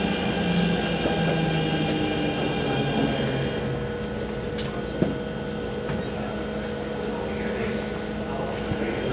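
Keikyu 2100-series train standing at the platform, its on-board equipment giving a steady hum with several steady high tones. A single sharp click comes about five seconds in.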